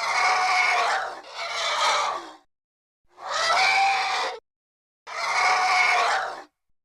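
Designed monster sound effect for the Siren Fish: four rasping creature cries, each a little over a second long. The first two come back to back, and the last two follow after short gaps of silence.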